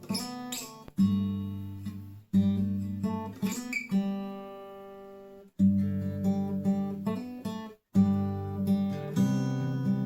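Washburn WD11SCE acoustic-electric guitar being strummed: chords struck and left to ring and fade, some with added picked notes, with brief stops between them.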